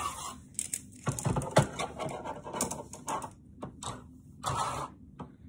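Plastic VEX IQ lift parts clicking and knocking as the four-bar lift is handled and raised by hand, with one sharper knock about a second and a half in. There are a few short breathy rustles, the clearest near the end.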